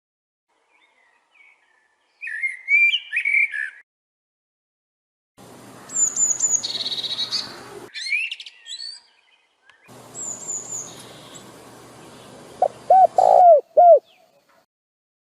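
Songbirds chirping and warbling in short bouts separated by silences, over a faint background hiss that starts and stops abruptly. Near the end a dove gives a few low cooing calls.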